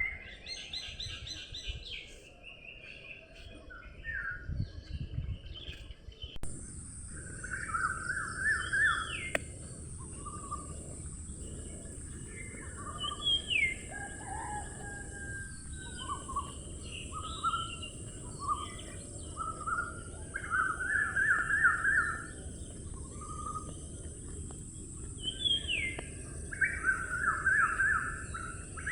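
Several songbirds singing and calling, a mix of short chirps and quick warbled phrases, over a low steady rumble. A steady high-pitched hiss comes in suddenly about six seconds in and carries on under the birdsong.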